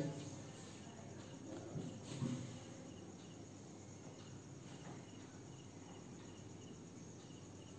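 Faint insect chirping, probably crickets, repeating at a regular pace over quiet room tone, with two brief soft noises about two seconds in.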